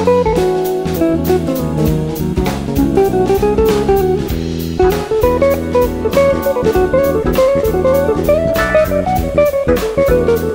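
Instrumental background music with guitar over a steady drum beat.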